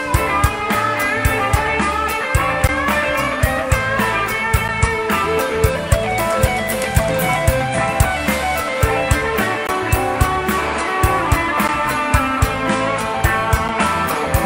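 Band playing an instrumental passage, guitar over a steady drum beat, with no singing.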